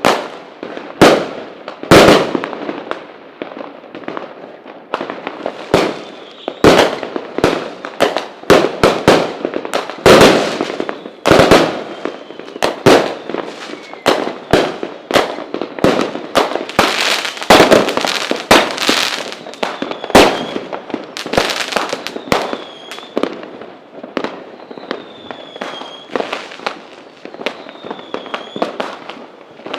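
Fireworks going off in a dense, irregular volley of sharp bangs, several a second, with crackling between them. Short whistling tones join in over the last several seconds.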